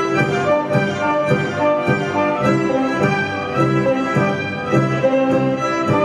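A Romanian folk string ensemble playing: several violins carry the tune over low strings that keep a steady beat of about two strokes a second.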